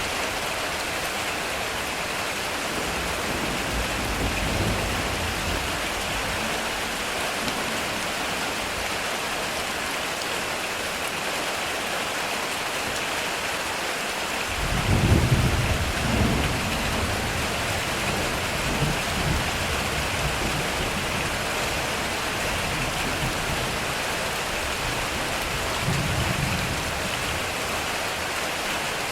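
Heavy rain falling steadily on a metal roof, with thunder: a faint low rumble a few seconds in, a sudden loud thunderclap about halfway that rumbles on for several seconds, and a softer rumble near the end.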